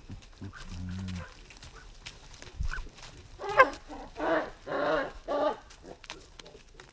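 Farm animals calling: a short, low call about a second in, then four louder calls in quick succession starting about halfway through.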